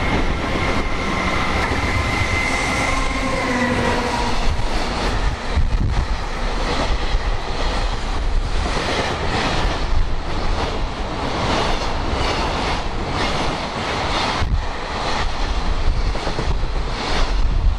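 Electric freight train passing at speed: a tone from the locomotive drops in pitch as it goes by about three seconds in, then the wagons rumble past with repeated clacks of the wheels over rail joints. Strong wind buffets the microphone.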